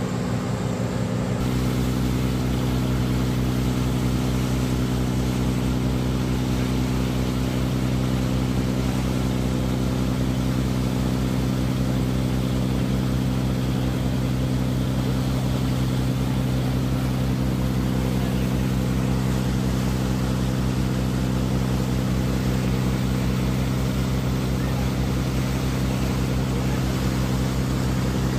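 Ferry's engine running steadily underway, a constant low drone with several even tones, over the rushing of its churning wake.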